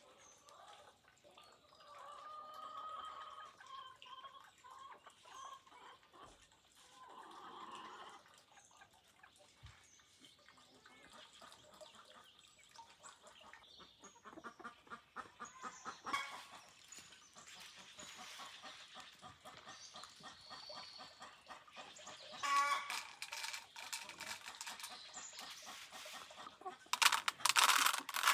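Chickens clucking, followed by a long run of quick clicks and rustling that grows louder near the end.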